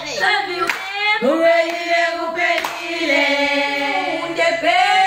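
A group of girls singing together, with hand claps.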